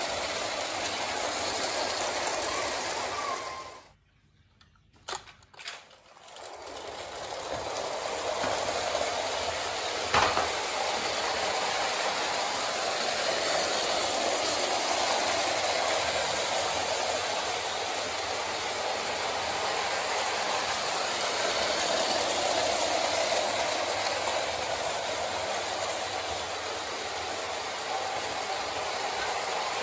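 O-gauge clockwork tinplate locomotive and coaches running on tinplate track: a steady whirring and rattling of the spring motor and wheels. It cuts out about four seconds in, with a couple of clicks, and builds back up over the next few seconds. A sharp click about ten seconds in.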